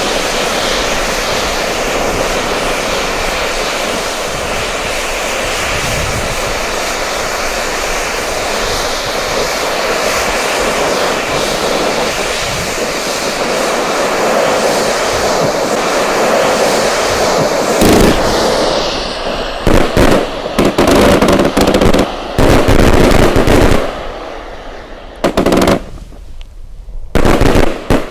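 Luypaers Kamado Dragon fountain cake: its gold fountain sprays with a steady rushing hiss for about eighteen seconds. Then its 30 mm tubes fire their shots in several loud, quick volleys, the last just before the end.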